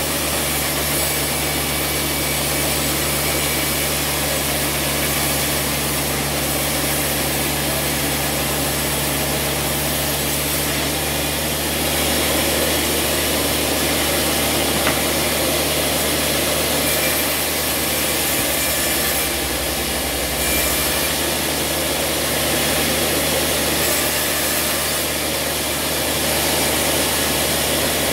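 A large vertical band sawmill running steadily while its blade cuts lengthwise through a wooden slab, with the steady low hum of the mill's drive under the noise of the cut.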